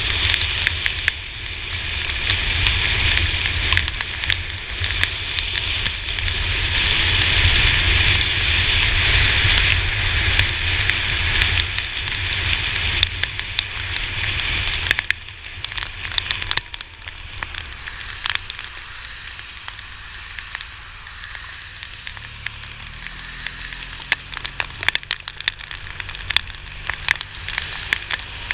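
Raindrops ticking on an action camera's housing during a ride on a Yamaha T-Max maxi-scooter in heavy rain, over a steady hiss and low wind rumble. The hiss and rumble drop away about halfway through, leaving mostly the scattered drops and a faint engine hum near the end.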